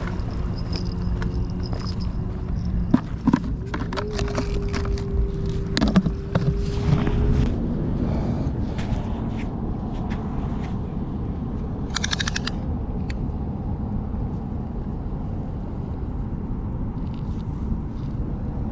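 A handheld camera being carried and set down: scraping and knocks of handling against the microphone and footsteps on a dirt path, over a steady low rumble. A steady low hum runs for a few seconds in the first half, and a short rapid rattle comes near the middle.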